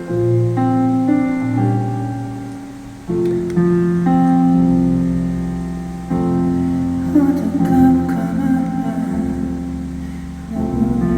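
Live solo piano playing slow, sustained chords, changing every second or two: the intro of a ballad. About seven seconds in, a voice sings softly over it for a moment.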